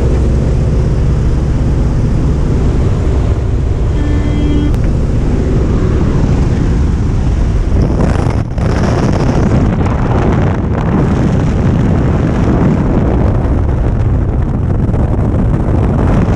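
Jump plane's engine and propeller droning steadily, heard from inside the cabin, with wind rushing in through the open door and growing louder about halfway through as the jumper moves out to the doorway. A short tone sounds about four seconds in.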